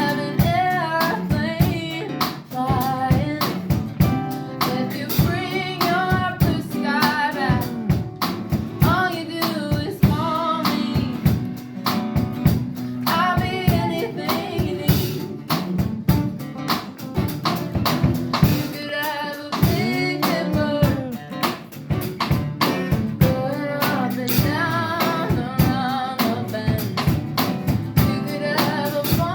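A live band playing a rock song, with a sung lead vocal over guitar and drum kit.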